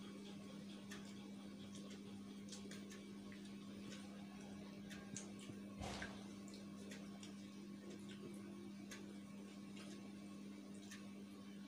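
Faint, irregular small clicks and taps of a hand eating rice and vegetables from steel bowls, over a steady low hum. One louder knock comes about six seconds in.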